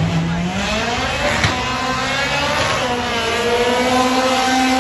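Car engine running at high revs, its pitch climbing briefly, dipping a little, then holding steady.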